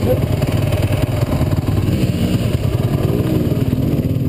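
Dirt bike engine running under way on a trail, with a steady low, fast pulsing exhaust note. About halfway through, the engine pitch rises and falls a little as the throttle changes.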